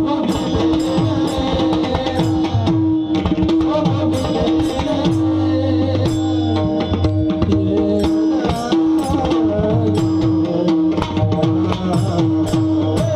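Mridang (pakhawaj) drumming in a fast stream of strokes over a steady held drone note, as devotional music.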